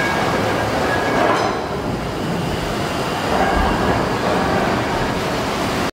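Rotative steam beam pumping engine running, giving a steady mechanical running noise with no clear beat.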